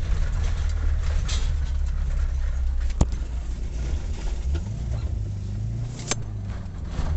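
A motor vehicle running, with a steady low rumble, a brief rise in engine pitch around the middle, and two sharp clicks, about three seconds apart.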